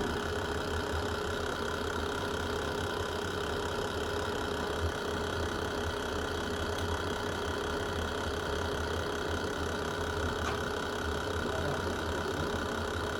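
Fireplace ambience: a steady low rumble of burning fire with a constant hum over it, and a couple of faint pops.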